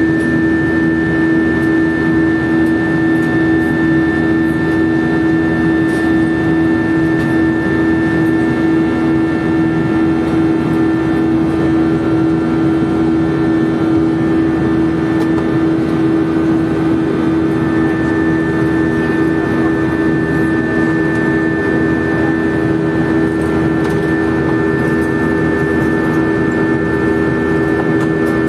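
Jet airliner cabin noise in flight: the turbofan engines give a steady drone with a strong low hum and a fainter high whine over the rush of air past the fuselage, heard from inside the cabin.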